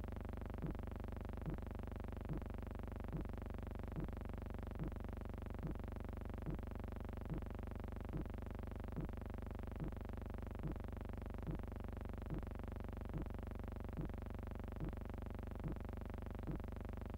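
Steady electronic hum made of many held tones, with a short pulse repeating evenly a little more than once a second.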